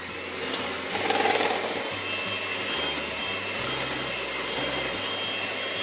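Electric mixer running steadily through dough with a whirring motor noise and a faint high whine.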